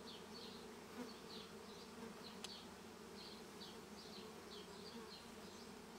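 Faint, steady buzzing hum of a honeybee swarm as the bees crawl and fly into their new hive box.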